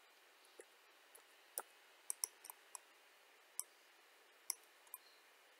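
Irregular clicks of a computer mouse and keyboard, about ten in all, some close together. They come from someone working a 3D modelling program with key shortcuts and mouse clicks. A faint steady hiss lies underneath.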